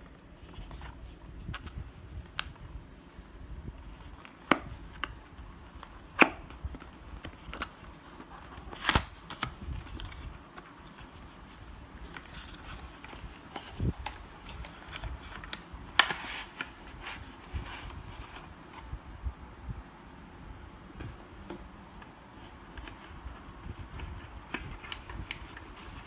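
Hands handling packaging and small plastic parts: irregular rustling with many scattered clicks and snaps, a few sharper clicks standing out.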